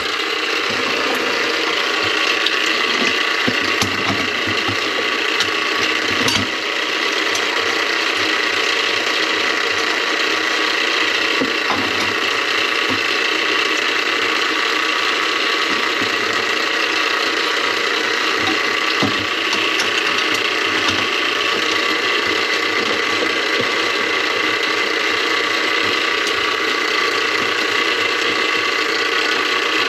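Power drain snake running steadily, its cable clattering and ratcheting as it works through a grease-clogged kitchen drain line, with scattered clicks.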